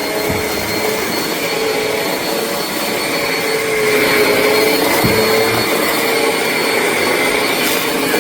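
Eureka NEU10AE5 bagless upright vacuum cleaner running steadily over carpet, a motor whine with a pitch that wavers slightly, getting a little louder about four seconds in.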